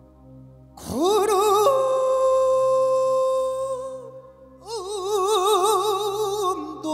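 Male trot singer's voice sliding up into a long held note, then a second phrase with wide, slow vibrato, over soft, sustained accompaniment.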